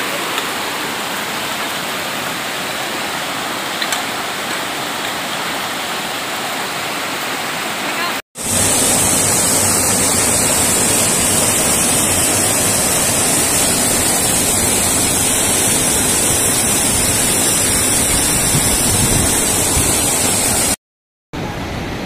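Water of a rocky mountain stream rushing and splashing over boulders in a steady, loud rush. It cuts out briefly about eight seconds in and returns louder and hissier, with a small cascade close by, then drops out for a moment again near the end.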